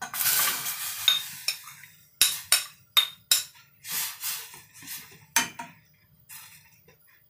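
A metal spoon scrapes food out of a ceramic bowl into a stainless steel saucepan of broth, a rush of scraping and splashing over the first couple of seconds. Then comes a string of sharp clinks as the spoon knocks and stirs against the saucepan.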